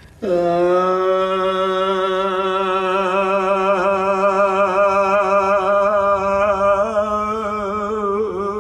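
A man's voice holding one long, low chanted note that shifts slightly in tone as it goes: a Māori call to the ancient ones, the ancestral whales, asking for their help.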